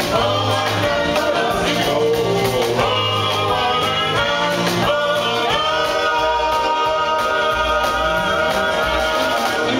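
Live rock and roll band: a woman and a man singing together over double bass, drums and guitar. From about halfway through, the voices hold long notes.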